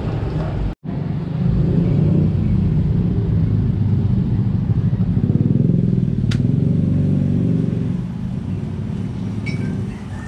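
A motor vehicle engine running, building up about a second in and easing off near the end. A single sharp click about six seconds in.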